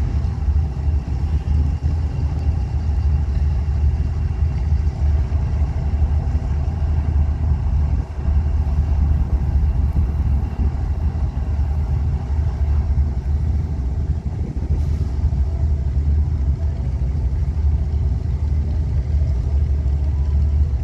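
CSX diesel-electric locomotive idling with a steady low rumble.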